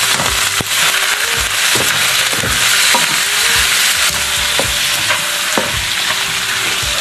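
Blanched sea cucumber and vegetables sizzling loudly in hot oil in a wok, the wet food throwing up steam, while a spatula scrapes and knocks against the pan about twice a second as they are tossed.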